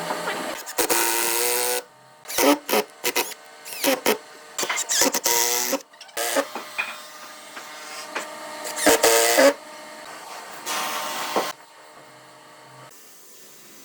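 A small electric power tool's motor started and stopped in repeated short bursts, mixed with knocks and clatter; it dies down to a quieter hum over the last couple of seconds.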